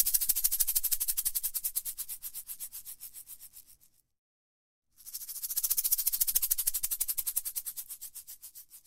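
A rapid dry rattling of about ten clicks a second that fades out over some four seconds; after a second of silence an identical run of rattling starts again and fades the same way.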